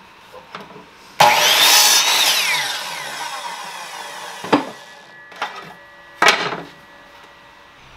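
Ryobi miter saw cutting through a short piece of wood: the motor starts suddenly and cuts for about a second, then the blade spins down with a falling whine that fades over a few seconds. Three sharp wooden knocks follow as the cut pieces are handled.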